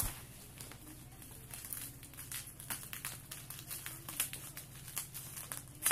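Packaging being cut open with scissors and handled: irregular crinkling and small clicks, with a few sharper snaps about four seconds in and at the end.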